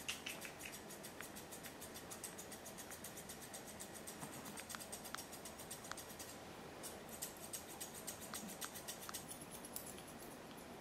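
Grooming shears snipping a Pomeranian's fluffy coat in a quick, steady run of light snips, several a second, with a short break about six seconds in.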